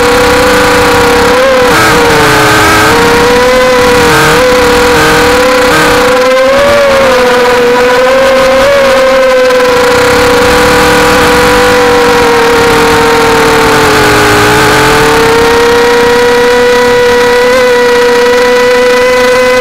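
250-size FPV mini quadcopter's brushless motors and propellers, heard from its own onboard camera: a loud, steady whine whose pitch wavers with quick throttle changes in the first third and dips briefly about two-thirds through.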